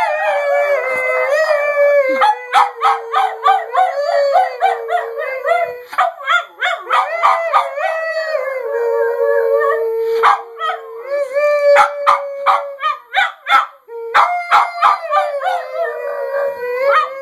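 Boston terrier mix dog howling at length, a long wavering howl with rapid pulsing yips in it, breaking off briefly a few times before starting again.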